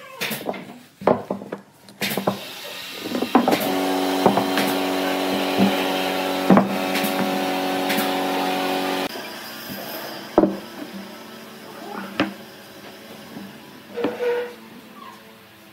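Wooden boards knocked together and set down on a workbench, with sharp wooden taps. A loud steady hum with a clear pitch runs from about two to nine seconds in, then stops, leaving scattered taps and handling.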